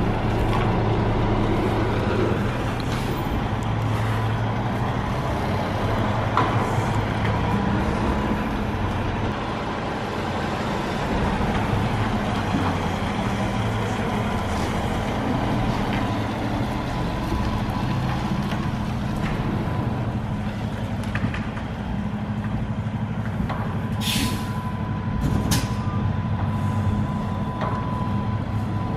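Semi truck's diesel engine running steadily at low speed while backing a trailer, with a thin steady high tone over it. Near the end, two short sharp hisses of air.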